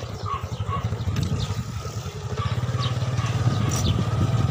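Small motorcycle engine running while riding along a dirt road, with a fast low firing pulse that grows louder about two seconds in as it speeds up.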